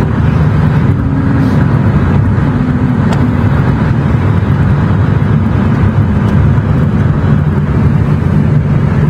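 Car driving at steady speed: a continuous low rumble of road and engine noise.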